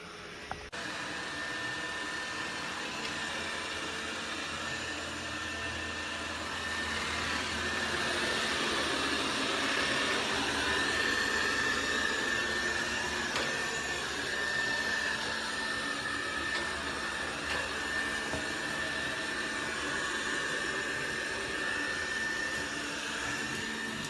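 Dreame robot vacuum's suction motor running steadily: a whooshing rush with a high steady whine, swelling a little in the middle.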